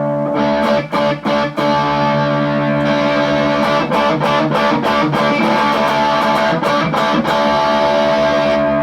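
Electric guitar played with heavy distortion through a distortion pedal stacked with an Ibanez TS9 Tube Screamer: a few quick chord strums in the first couple of seconds, then chords left ringing with sustain and the odd fresh strum. This is the tone test of the repaired pedal.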